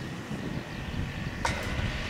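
Low, steady rumble of an approaching Kyoto Municipal Subway 20 series electric train, still far off. A single sharp click comes about one and a half seconds in.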